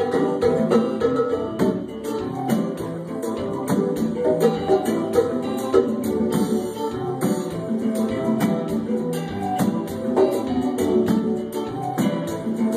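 Live band music: a strummed guitar with percussion keeping a quick, steady beat.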